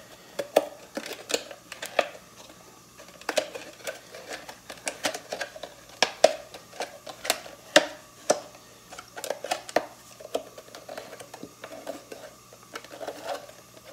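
Cut strips of a thin plastic water bottle being bent back by hand, crackling and clicking in irregular sharp snaps.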